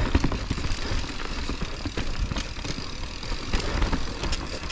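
Mountain bike riding down a dirt trail: a steady rumble with frequent knocks and rattles from the bike over the ground.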